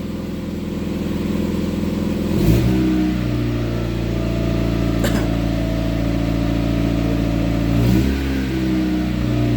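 A 1993 Mazda Miata's 1.6-litre four-cylinder engine running through its old exhaust. It idles, is revved up about two and a half seconds in and held at a steady higher speed, then dips and picks up again near the end. A faint click comes about halfway through.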